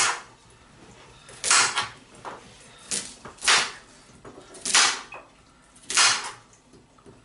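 Kitchen knife chopping through raw carrots onto a cutting board: six slow, separate chops, each a short crunch and knock, roughly one a second.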